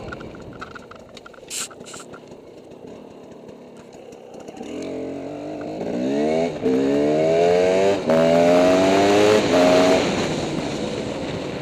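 Dirt bike engine running low at first. About five seconds in it accelerates hard, rising in pitch through three upshifts with a short dip at each shift, then eases off near the end.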